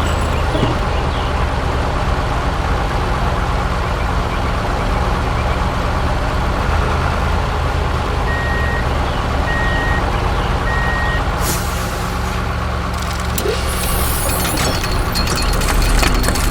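Heavy truck engine running steadily with a low hum, with three evenly spaced reversing beeps a little past the middle and a burst of hiss near the end.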